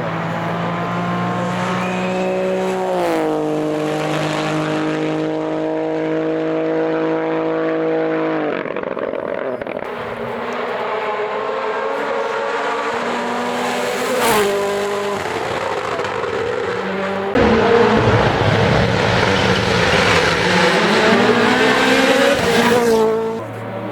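Rally car engines running hard on a stage, their pitch stepping down a few seconds in. A louder car comes through in the second half with its engine note rising, then drops away near the end.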